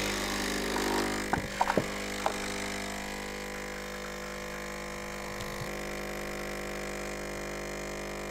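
Caffitaly capsule coffee machine's pump running with a steady hum as coffee pours into a glass of oat milk, with a few sharp clicks in the first couple of seconds.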